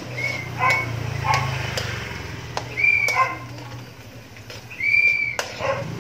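A metal ladle clinks and scrapes against an aluminium wok during stirring. Over it come about six short, high-pitched animal calls, the loudest at about three and five seconds in.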